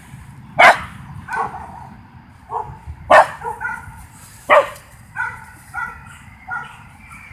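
Dog barking: three loud, sharp barks, about a second in, at about three seconds and at about four and a half seconds, with fainter short yaps in between.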